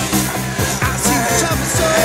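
Rock music with a steady, fast drum beat.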